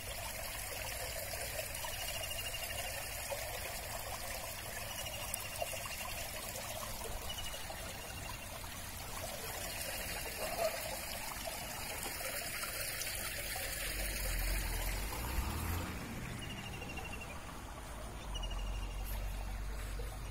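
Water trickling steadily at the pond's edge, with a short high chirp repeating every second or two. A low rumble comes in twice in the second half, like wind on the microphone.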